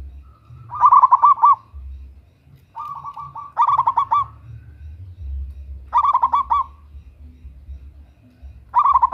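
Zebra dove (perkutut) singing its cooing song: four phrases of quick rolling notes, about three seconds apart.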